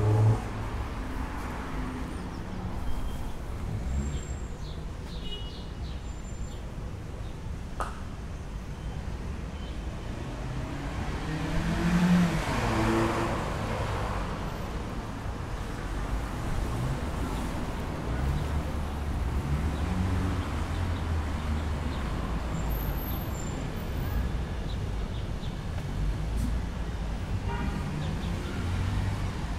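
Urban street traffic: a steady rumble of cars on the road beside the sidewalk, with one vehicle passing close and loudest about twelve seconds in.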